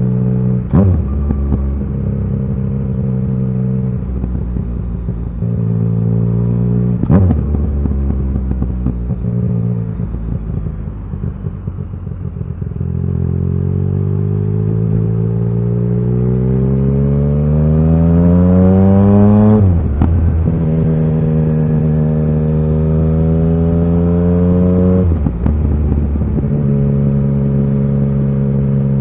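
Yamaha XSR900's inline three-cylinder engine running on the move. Steady cruising revs give way to a long rising pitch as it accelerates hard for several seconds. Four gear changes are each marked by a sharp crack and a drop in revs.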